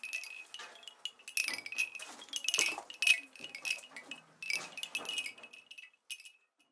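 Bamboo-tube wind chimes knocking together in irregular clusters, each knock ringing briefly, stopping shortly before the end.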